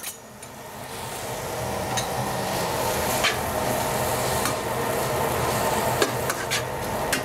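Onions frying in hot bacon grease with garlic, a steady sizzle that grows louder over the first couple of seconds, while a utensil stirs and clicks against the pan a few times.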